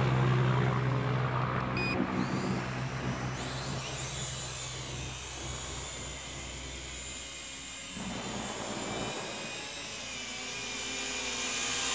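Promark quadcopter drone's motors and propellers whirring as it lifts off the water and flies, with a high whine that shifts in pitch. The sound fades toward the middle and grows louder again near the end.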